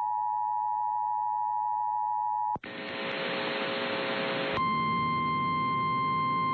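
Emergency Alert System two-tone attention signal, holding steady, then cut off abruptly about two and a half seconds in. About two seconds of hissy, static-like radio noise follow. Then a single steady, slightly higher alert tone starts over a noisy radio background.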